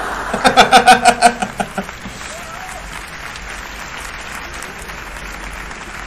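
A man laughing loudly in a quick run of about eight 'ha-ha' pulses over the first two seconds, over a live audience's applause and laughter that carries on steadily through the rest.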